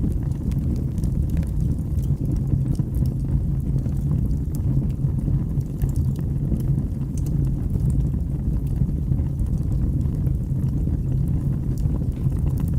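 Wood fire burning in a fireplace: a steady low rumble with small crackles and pops scattered irregularly throughout.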